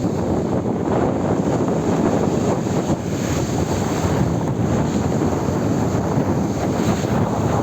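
South-westerly wind blowing hard across the microphone, a steady loud rush of low noise with no let-up.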